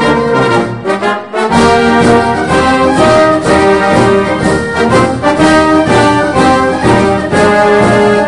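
Orchestral music led by brass, trumpets and trombones playing held notes and chords, with the bass dropping out briefly about a second in.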